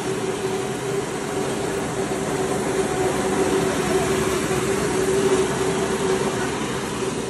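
Small electric rice milling machine running steadily: an even motor hum with overtones over a dense hiss.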